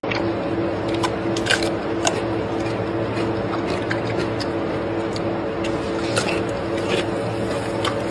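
Gorilla chewing food, with irregular crunching clicks, over a steady low hum.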